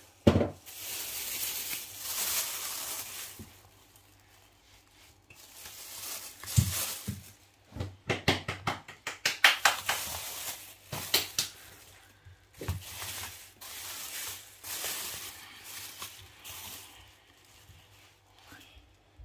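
Thin clear plastic crinkling and rustling in uneven bursts as it is spread over and tucked around a bowl of dough, with a run of sharp crackles in the middle. A single knock just at the start.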